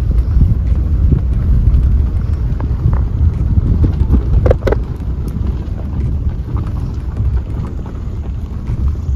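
Car driving slowly over a rough, potholed road, heard from inside: a steady low rumble with the body jolting up and down, and a short knock about halfway through.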